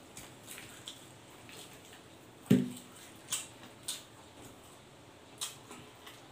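Close-up eating sounds of a person tearing and chewing roast pork leg with his hands: scattered wet smacks and sharp clicks from the mouth and fingers, with one louder short thud about two and a half seconds in.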